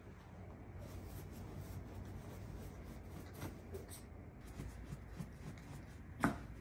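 A small dog rolling and wriggling on a fabric beanbag cushion, with soft rustling and rubbing of the cover. There is one sharp tap near the end.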